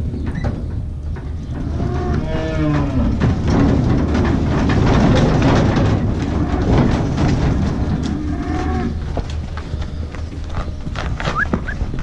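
Holstein cattle mooing, one moo about two seconds in and another near nine seconds, while the heifers' hooves clatter and scrape as they step off the livestock trailer onto concrete.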